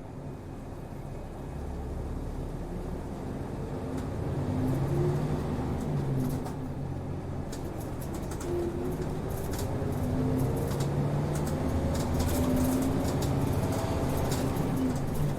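Diesel route bus's engine heard from inside the cabin, pulling away and accelerating: the engine note climbs, drops back at each gear change and climbs again, growing louder, with light rattles from the body.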